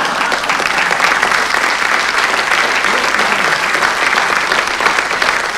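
Theatre audience applauding a comic punchline, a steady patter of many hands clapping.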